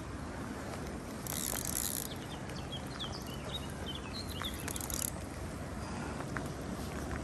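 Spinning reel's drag giving line in two short hissing bursts as a hooked carp pulls against the rod.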